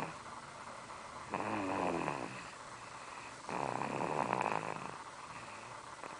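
Snoring during a nap: two rattling snores, each about a second long, about two seconds apart.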